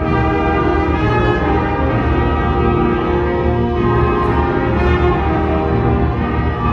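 School concert band playing, mostly sustained chords.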